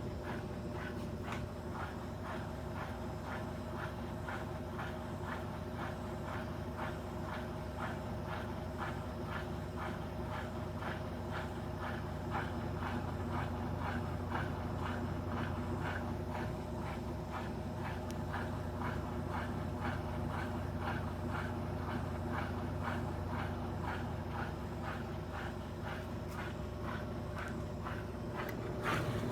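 Electrolux Turbo Economia 9 kg LTE09 washing machine running its spin cycle: a steady motor hum with a rhythmic swish repeating about two or three times a second, growing a little louder about twelve seconds in.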